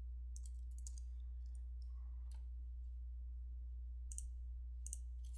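Computer keyboard keystrokes, light clicks in small scattered groups, over a steady low hum.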